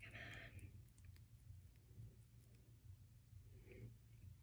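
Near silence with faint, scattered small clicks of a fine metal necklace chain being worked in the fingers while a knot is picked apart with an ear wire.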